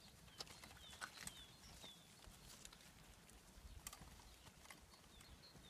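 Near silence: faint, scattered steps of a draught horse's hooves on soft muddy grass as it drags a tyre, with a few faint high chirps like a bird's.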